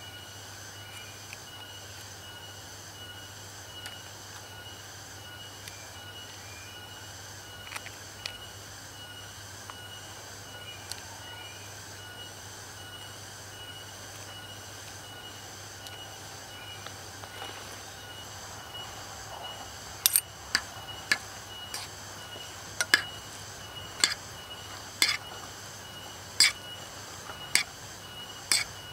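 A steady chorus of insects calling, with constant high shrill tones and a faster pulsing trill above them. About two-thirds of the way through, a run of sharp knocks begins, roughly one a second, louder than the insects.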